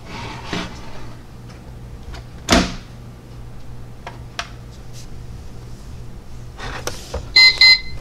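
Plastic knocks as a toy waffle maker's lid is shut and handled, then near the end the toy gives two short, high electronic beeps as it is switched on to 'cook'.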